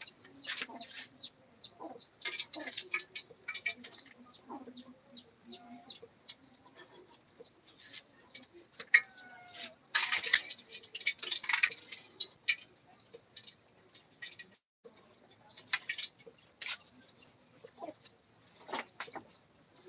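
Chickens clucking, with runs of short high chirps about two a second, among scattered knocks and clicks. About ten seconds in there is a rough, noisy burst lasting roughly two seconds.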